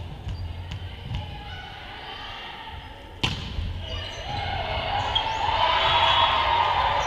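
A volleyball bounced a few times on a hardwood gym floor, then struck hard for a serve about three seconds in, a sharp crack that echoes in the hall. Voices of players and spectators build after the serve.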